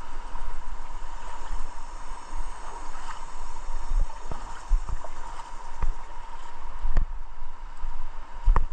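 River water splashing and gurgling, with scattered knocks and bursts of low rumble.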